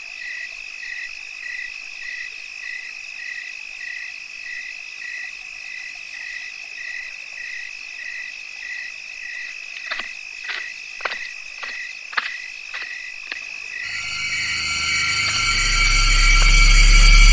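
Night chorus of insects and frogs: a steady high trill with a chirp pulsing about two and a half times a second. About two thirds of the way in come about seven footsteps on concrete steps, roughly two a second, and then a low drone rises and swells until it is loud near the end.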